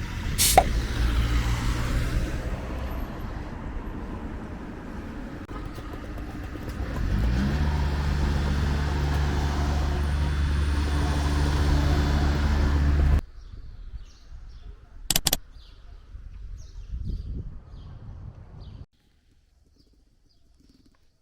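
A motor vehicle running, its engine note climbing as it picks up speed about seven seconds in, then cut off suddenly. Afterwards there are faint bird chirps and a single sharp click.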